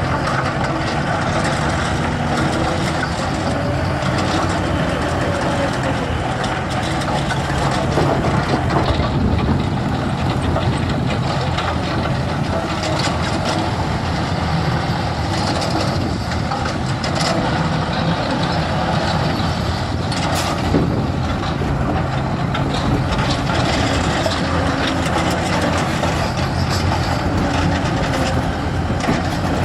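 Heavy diesel engine of construction machinery running steadily under work, with a few brief knocks.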